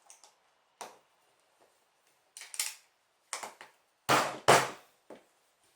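Plastic LEGO pieces clicking and rattling as they are handled, in several short separate clatters; the two loudest come about four seconds in.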